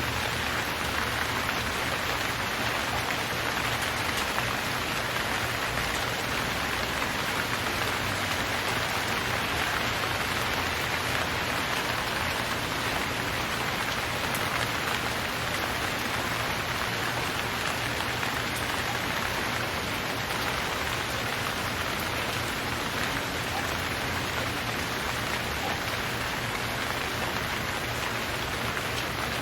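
Steady rain falling, an even hiss of raindrops on surfaces with no change in strength.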